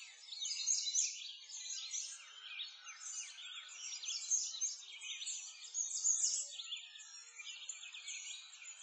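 Many small birds chirping and singing at once, a dense chorus of overlapping short calls that carries on without a break.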